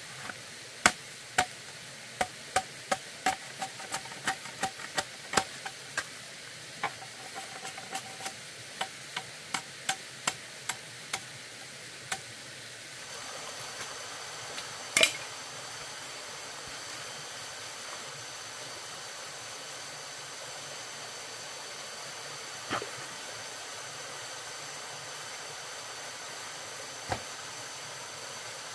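A run of sharp knocks at an uneven pace, roughly two a second, like something being struck or chopped, stopping about thirteen seconds in. After that comes a steady hiss with a faint high whine, broken by a few single knocks.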